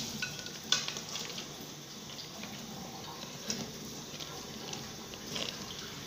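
Metal ladle scraping and clinking against a stainless-steel pot of hot boiled crabs, with one sharp clink about a second in, over a steady hiss.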